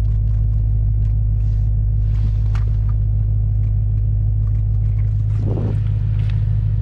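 BMW E92 M3's V8 engine idling with a steady low hum, with small clicks and handling noises and a short thump about five and a half seconds in.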